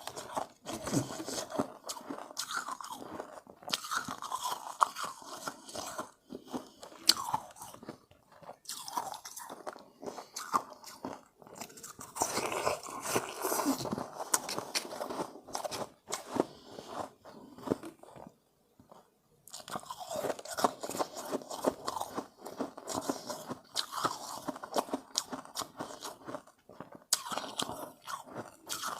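Close-up crunching and chewing of refrozen shave ice: bouts of many crisp crackles a few seconds long, broken by short pauses, with one longer pause around two-thirds of the way through.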